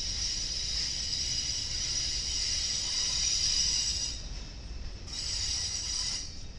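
Freight train flatcars rolling past with a low rumble, and a high-pitched squeal of steel wheels on the rail. The squeal holds for about four seconds, breaks off, and comes back for about a second near the end.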